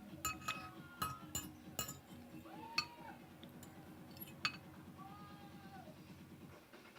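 Cutlery clinking against a bowl of noodles: a run of sharp clinks in the first two seconds, then two more, over a faint steady hum that stops shortly before the end.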